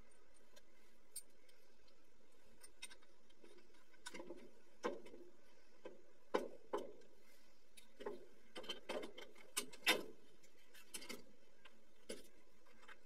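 Scattered clicks and knocks of plastic water pipe and fittings being handled and pushed together, over a faint steady hiss. The knocks come thickest from about four to eleven seconds in, with the sharpest one near ten seconds.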